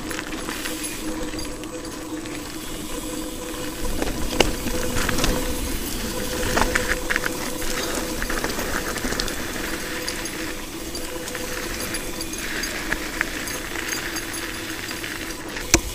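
Mountain bike rolling along a dirt trail: tyre noise and rattling from the bike over bumps, with a few sharp knocks, the loudest near the end.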